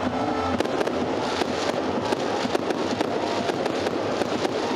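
Fireworks crackling in a rapid, irregular string of sharp bangs, set off to celebrate a home run.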